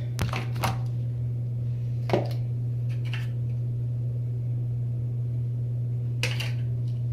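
A steady low hum, with a few brief soft handling noises near the start, around two and three seconds in, and near the end.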